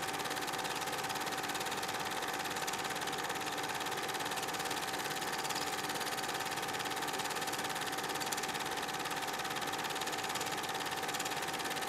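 Film projector running: a steady mechanical whirr with a fast, even clatter and a constant whine.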